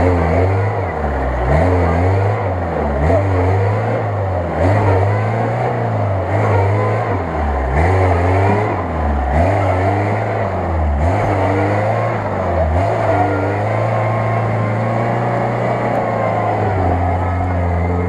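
Lada Niva's engine revving up and down again and again under load as the 4x4 churns through deep mud, a rise and fall about every second. It holds a steadier pitch over the last few seconds.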